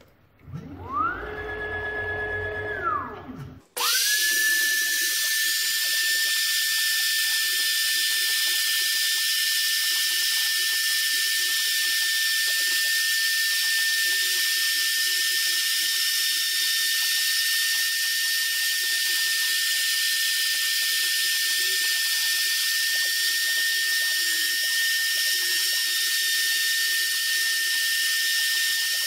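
The homemade CNC machine's wood router running steadily at full speed as it cuts gasket paper glued to cardboard: a high whine with a hiss. About a second in, a shorter whine rises, holds for a couple of seconds and falls, then breaks off suddenly before the steady run begins.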